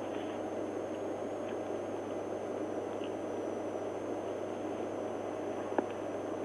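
Steady cabin noise of a stationary police cruiser: an even hiss over a low hum, with a faint high whine from the recording system. A single sharp click comes near the end.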